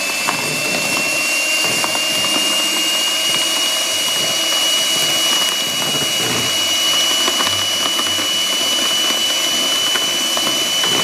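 Electric hand mixer running steadily at speed with a high, even whine, its twin beaters churning egg whites into a sponge-cake batter in a plastic bowl.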